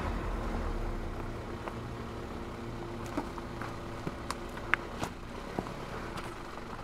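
A four-wheel-drive vehicle's engine running steadily at low revs while crawling off-road. Scattered sharp clicks and knocks from the tyres and underbody on rock are heard, the loudest about two-thirds of the way through.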